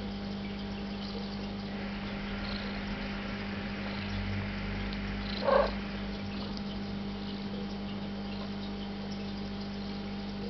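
A cat purring steadily, with one brief, louder sound about five and a half seconds in.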